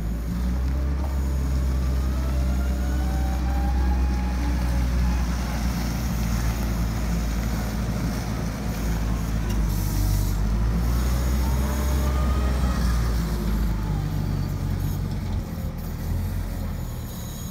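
Cat 902 compact wheel loader's diesel engine running steadily as the loader drives and turns on gravel. A whine rises and falls twice over the engine hum, and the engine eases off slightly near the end.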